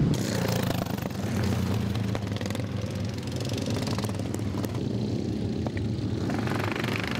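Racing lawnmower engines running on the circuit, a steady engine drone.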